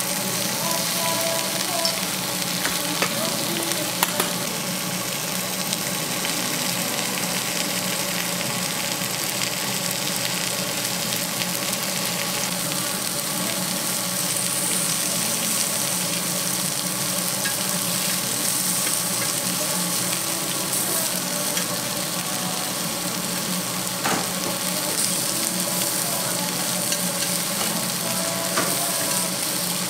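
Lamb and onions sizzling steadily on a hot domed cast-iron jingisukan grill pan, with a few sharp clicks of metal tongs against the pan.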